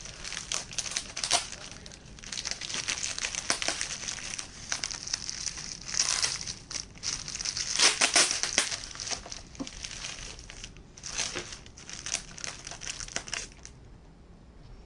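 Plastic parcel wrapping crinkling as it is handled and pulled apart: a black plastic bag sealed with packing tape, with clear plastic around it. Uneven crackly rustling that dies down near the end.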